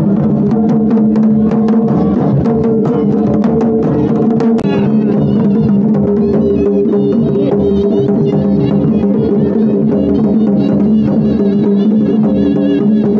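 Traditional Himachali procession band playing: dhol drums beat a steady rhythm under sustained wind-instrument notes. About a third of the way in, a wavering high melody joins.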